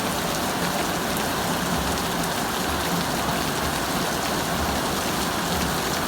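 Heavy rain falling steadily, a dense even hiss of rain on hard surfaces with no break or change.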